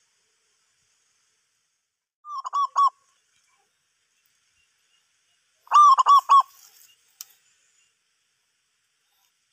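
Zebra dove calling: two short bursts of three or four quick arching coos, the second louder, with a faint click just after.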